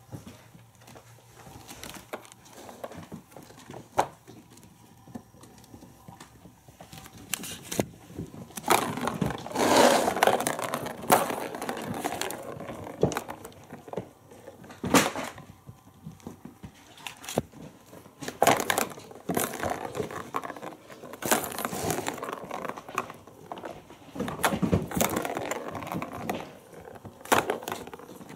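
Kittens at play with a plastic ball-track toy: a ball rattling round the track, with irregular clicks and knocks and several louder bursts of scrabbling noise.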